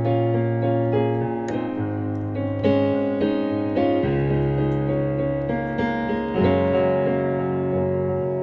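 Background piano music: slow notes over held low bass notes that change every two seconds or so.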